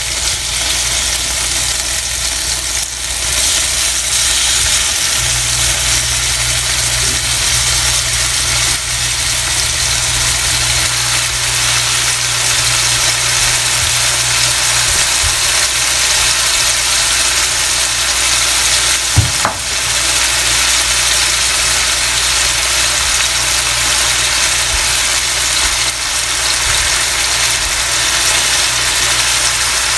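Marinated fish pieces frying in oil in a nonstick pan, a steady sizzle throughout. A low steady hum runs underneath, and there is a single sharp click about 19 seconds in.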